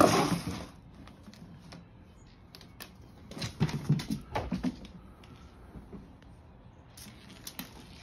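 A cat bolting out of a nylon play tunnel: the fabric rustles loudly right at the start, then its paws scamper and thump across a hardwood floor for about a second and a half around the middle, with a few light taps near the end.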